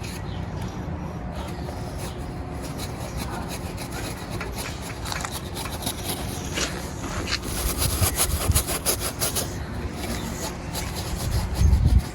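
Irregular scraping and rubbing strokes from cleaning caked dirt and grass off an old lawnmower, over a steady low rumble. The strokes grow busier through the middle, and a low thump comes near the end.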